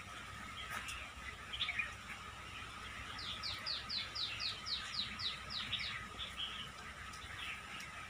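Small waves washing up on a sandy, pebbly shore, with birds chirping. About three seconds in, one bird sings a run of about ten quick, downward-sliding notes, roughly four a second, lasting a couple of seconds.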